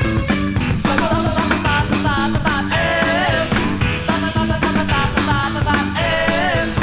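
New wave band playing a rock song with a steady, driving beat, with what may be a sung line partway through.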